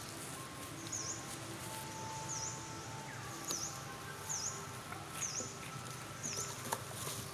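Outdoor background noise with a short, high chirp repeating roughly once a second, and faint steady whistling tones beneath it.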